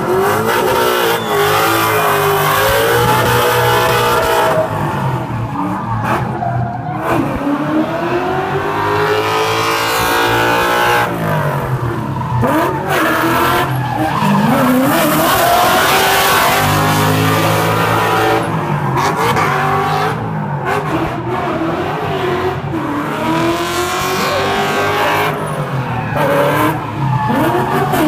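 Ford Mustang drift car's engine revving hard, its pitch rising and falling again and again as it is held in a slide, with tyres squealing and skidding.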